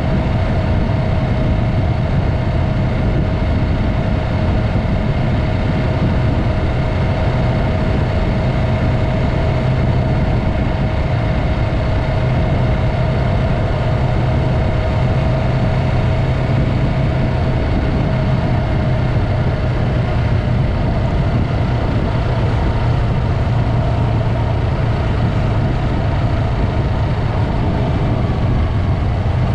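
Yamaha MT-03's parallel-twin engine running at steady revs through a Mivv aftermarket exhaust, a constant low drone with a steady higher tone over it.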